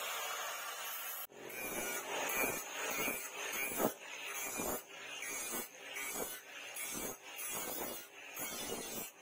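Charcoal forge being fed air, with rhythmic whooshes a little more than once a second that fit a hand-pumped bellows while the steel leaf spring heats in the coals. Before the pumping starts there is about a second of steady hiss.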